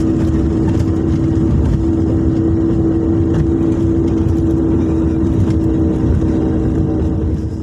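An engine running steadily: a low rumble with a constant hum, fading in at the start and out near the end.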